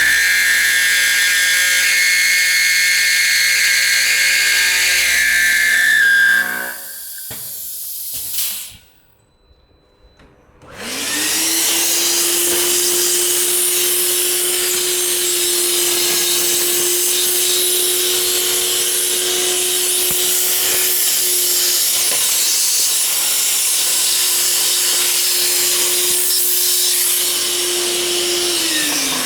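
MLA A40/A45 copy router milling a steel door profile: the spindle motor runs under cut, then shuts down about six seconds in. After a short quiet gap it spins up again with a rising whine and runs at a steady pitch with a high hiss, winding down near the end.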